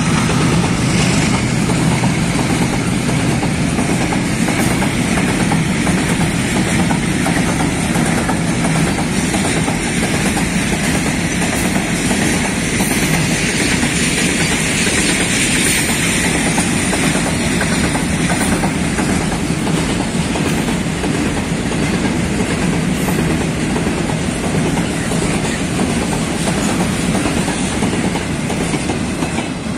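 Long rake of loaded petroleum tank wagons rolling past close by, its wheels clattering over the rail joints in a steady rumble. It fades near the end as the last wagons go by.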